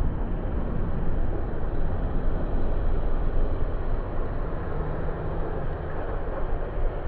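Road traffic passing on a busy city street, a continuous dull rumble with most of its weight in the bass, played back slowed down with the footage.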